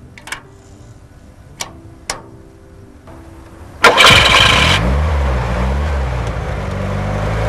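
A few sharp clicks, then about four seconds in the paragliding tow winch's engine is started: a short loud burst of cranking, then it catches and runs with a wavering note that settles into a steady idle. This is the winch being readied to put pretension on the tow cable.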